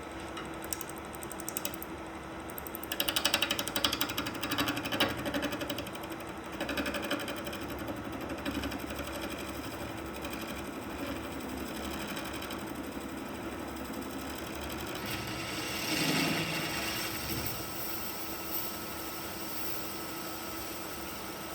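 Wood lathe running with a steady hum, with louder bursts of rapid rattling from work against the spinning piece a few seconds in and again about three-quarters of the way through.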